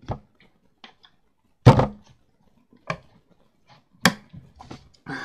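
A series of short, separate knocks and thumps, about half a dozen, the loudest a heavy thump about one and a half seconds in.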